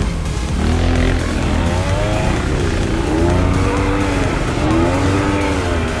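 Engine of a four-wheel-drive go-kart monster truck revving up and down repeatedly as it drives over dirt, with music playing over it.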